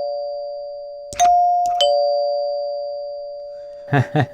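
Heath Zenith two-note electric door chime, run from a 9-volt battery, sounding a ding-dong: its electromagnet striker hits the higher tone bar about a second in, then the lower one about half a second later. Both notes ring on and slowly fade, with the ringing of the previous ding-dong still dying away at the start.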